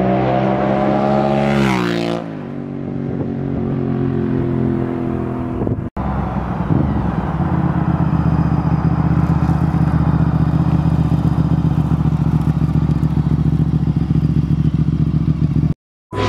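Honda RC51's 999cc V-twin on Danmoto slip-on exhausts passing at speed, its pitch dropping about two seconds in as it goes by, then fading. After a break it runs again at steady low revs with a fast, lumpy exhaust pulse, cutting off just before the end.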